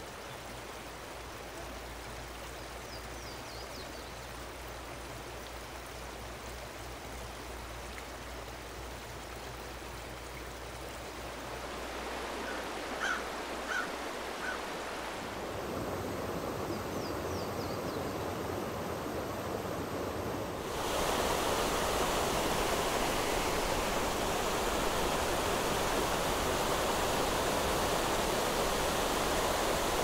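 Rushing water of a small mountain trout stream, a steady hiss that grows louder in steps about twelve and twenty-one seconds in. A few faint, short high chirps sound near the start and around the middle.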